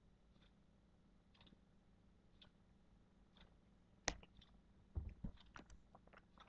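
Near silence of a quiet room, with faint ticks about once a second. About four seconds in comes a sharper click, followed near the end by a few more clicks and knocks.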